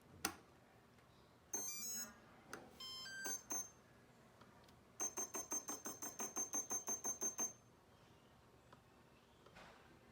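Electronic beep tones from a drone's ESCs and motors. A sharp click comes just after the start, then short tone groups step in pitch. About halfway in comes a fast, even run of about a dozen high beeps, roughly five a second, lasting about two and a half seconds.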